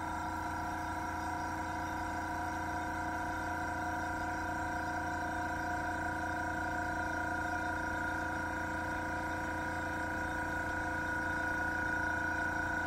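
Small airbrush compressor running steadily: an even hum with several held tones, really quiet at about 55 to 58 dB on a sound meter.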